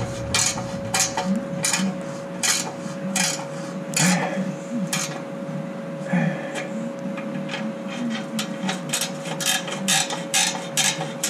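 Metallic clicks and clinks of a ratchet wrench tightening the nuts of an exhaust pipe clamp on a catalytic converter's outlet pipe, the clicks coming quicker and more regular in the last few seconds.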